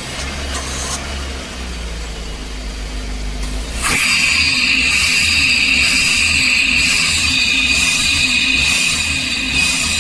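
Daihatsu Dabbab van engine running with its idle set too high, racing, because of a faulty throttle body and sensor setting. A low rumble at first; about four seconds in it gets suddenly louder, with a steady high whine over it.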